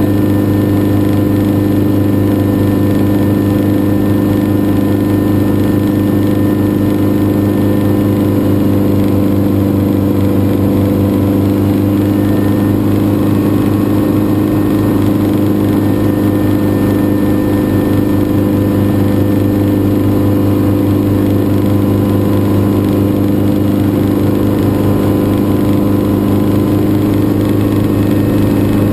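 Schweizer 300 light helicopter's piston engine and rotor running steadily, heard from inside the open cockpit. It is a loud, even drone with no change in pitch or level.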